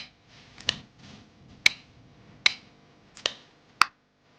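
Flex cable connectors being pressed onto the sockets of an iPhone 14's logic board one after another: six sharp snapping clicks, roughly one every two thirds of a second.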